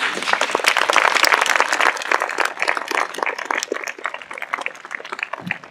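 Audience applauding. It breaks out suddenly, is densest for the first two or three seconds, then thins to a few scattered claps near the end.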